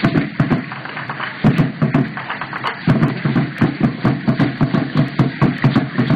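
A drum struck in a fast, steady beat, several strokes a second.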